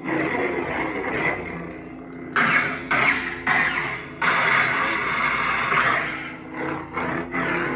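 Lightsaber sound font from a CFX soundboard, played through the hilt's 28mm speaker: a steady blade hum, broken from about two and a half seconds in to about six seconds by a run of sudden loud swing and clash effects.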